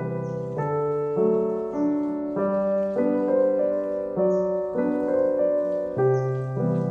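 Background piano music, its notes changing at an even pace.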